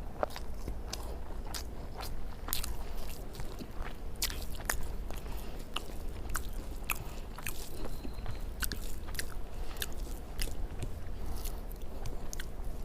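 A person chewing and eating rice with egg curry and fish up close, with wet mouth clicks and smacks coming irregularly several times a second over a low steady hum.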